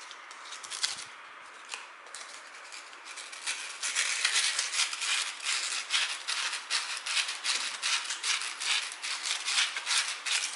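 Sandpaper scrubbing the small square-toothed parts of a mixer tap to clear built-up water scale. A few light scrapes come first, then from about four seconds in a fast run of scratchy strokes.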